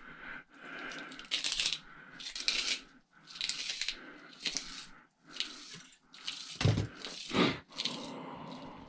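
Metal parts of a scrapped microwave being pulled apart and handled: a run of short scraping, crunching noises about once a second, with two heavier knocks about two-thirds of the way through.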